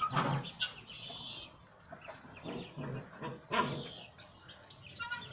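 German shepherd puppies play-fighting, making a string of short growls and yelps, with one louder arched yelp about three and a half seconds in.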